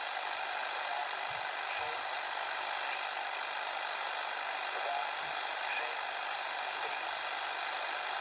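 XHDATA D-808 shortwave radio in upper-sideband mode hissing with steady shortwave static through its speaker, with only faint traces of a weak signal under the noise.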